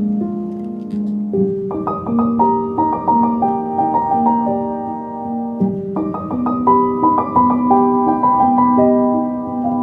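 Background piano music: a gentle melody of held notes over a steady lower part, with a new phrase starting about a second in and again about halfway through.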